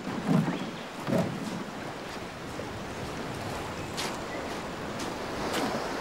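Surf washing on a beach, with wind. Two short low thumps in the first second or so, and a few faint sharp clicks later on.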